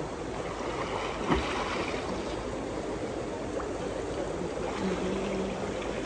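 Ganges river current rushing past in a steady wash of fast-flowing water, with a single short knock about a second in and faint voices in the background.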